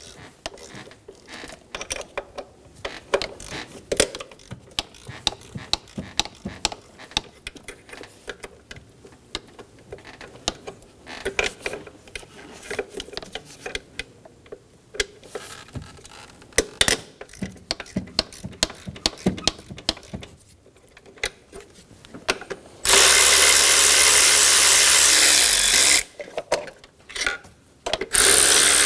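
A hand ratchet clicks in short runs as the throttle body's 12mm bolts are loosened. Near the end a cordless power tool on a socket extension spins the bolts out. It runs loudly for about three seconds, stops, and starts again.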